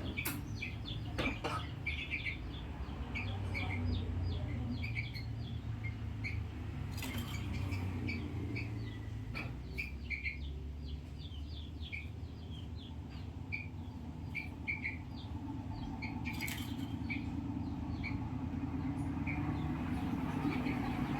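Birds chirping: many short, scattered chirps throughout, over a low steady hum, with a few brief knocks.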